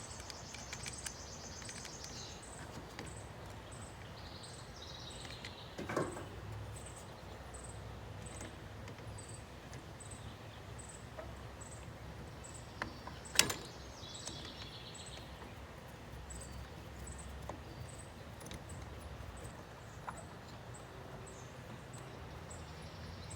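A cricket chirping steadily, about one and a half high chirps a second, over a low hum, with two sharp clicks, one about six seconds in and a louder one about halfway through.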